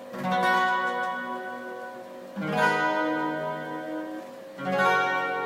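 Acoustic guitar strumming three chords a couple of seconds apart, each left to ring and fade: the closing chords of the song after the last sung line.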